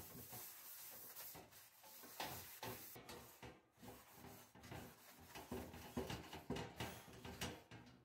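Quiet indoor handling sounds: an irregular run of small knocks, clicks and rubbing, as of household objects being moved and wiped.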